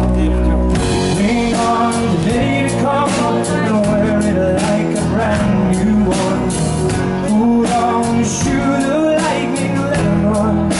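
Live rock band playing a song: strummed acoustic guitar with bass and drums under a male lead vocal.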